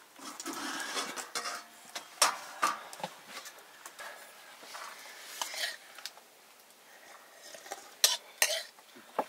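Metal spoon scraping the inside of a steel wok and clinking against it and against steel plates while rice is scooped out and served. Irregular scrapes and clinks, with sharper knocks about two seconds in and again near the end.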